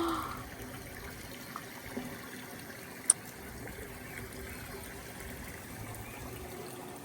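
Steady, gentle trickle of a small stream's flowing water, with one sharp click about three seconds in.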